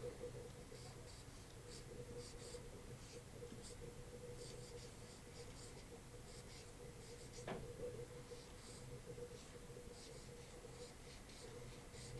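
Dry-erase marker squeaking and scratching on a whiteboard in short, irregular strokes as words are written, over a steady low electrical hum.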